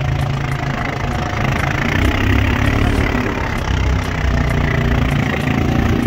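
Engine of a 450cc farm bike running steadily while riding and towing a calf trailer.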